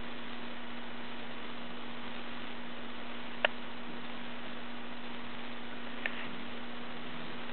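Steady hiss with a low hum, broken by a sharp click about three and a half seconds in and a fainter click near the end; no snoring rhythm stands out.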